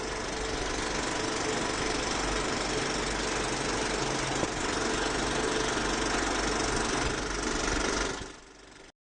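Steady rattling, machine-like whir with a faint hum under it, the sound effect of an animated film-company logo; it fades out over the last second.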